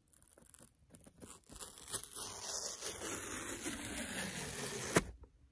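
Cardboard shipping box being handled and worked open: a few light taps, then about three and a half seconds of continuous rough scraping and rustling of cardboard, ending in one sharp knock.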